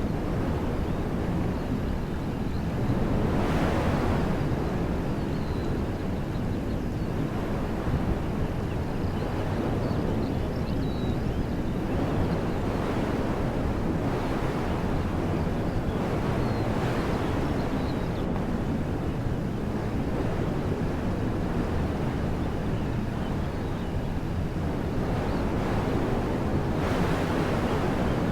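Wind blowing through woodland trees: a steady rushing that swells into stronger gusts every several seconds, with low rumbling wind buffeting the microphone.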